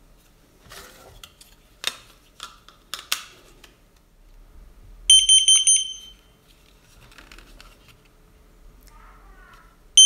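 Battery-operated carbon monoxide alarm sounding its self-test after batteries are fitted: one loud, shrill beep with a rapid flutter about five seconds in, lasting about a second, and another starting at the very end. Before it, a few clicks of the plastic case being handled.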